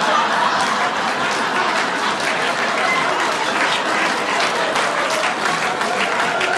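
Live audience applauding: a steady, dense clapping of many hands.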